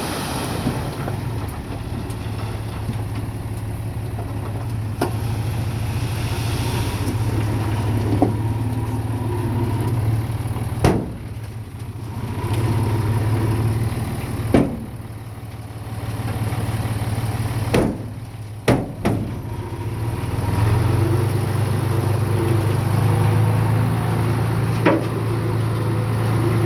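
Bulldozer's diesel engine running, its level dropping and rising again several times as the load changes, with a few sharp metallic clanks.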